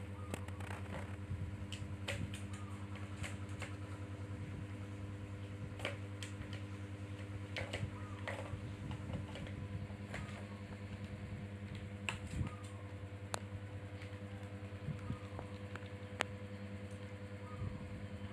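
A kitten batting at a plastic tower-of-tracks ball toy: scattered light clicks and taps of paws and the ball against the plastic tracks, irregular throughout, over a steady low hum.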